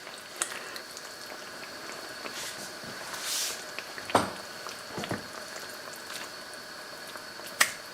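Thick tomato and paprika sauce simmering in a pan, bubbling and popping softly, with a few light knocks and clicks.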